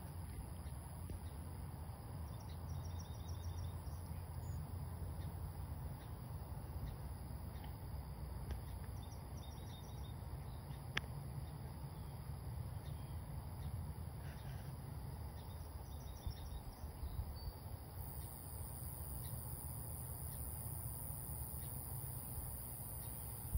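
Outdoor ambience: a steady low rumble under a high, even insect drone, with a few faint short trains of insect chirps. The high drone grows louder about eighteen seconds in, and there is a single sharp click near the middle.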